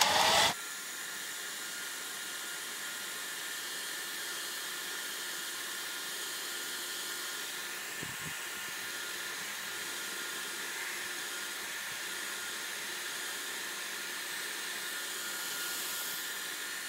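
Hot-air blower running steadily with an even blowing hiss, heating the iPhone 6S's screen edge to soften the display adhesive before prying.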